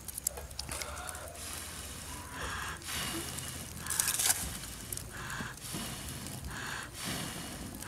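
Someone blowing through a metal tube onto a smouldering wood fire to rekindle it: a series of breathy puffs, roughly one a second, over light crackling of burning wood and leaves.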